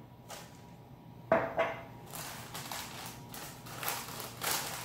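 A single sharp knock about a second in, then a parchment paper piping cone crinkling and rustling as it is folded shut.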